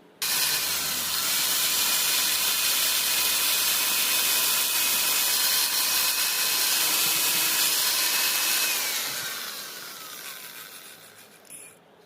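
Juicer blender's brushed motor switched on and running at full speed with a steady high whine. About nine seconds in it is switched off, and the whine falls in pitch as the motor spins down over a few seconds.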